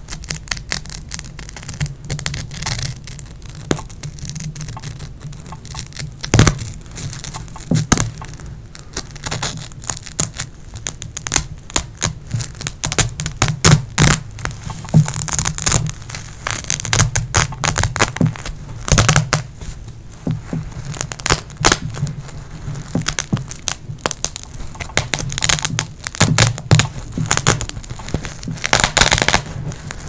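Fingernails scratching the white Velcro hook-and-loop strip sewn on a terry bath towel, making an irregular crackle of sharp scratches, busier and louder in stretches.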